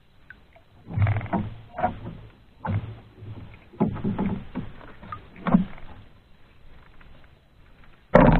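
Irregular knocks and bumps against a small wooden outrigger boat as a handline is worked, then one heavier thud near the end as the line spool is lifted.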